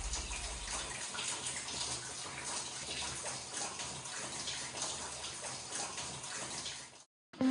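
Steady noise of running, splashing water, cutting off abruptly near the end.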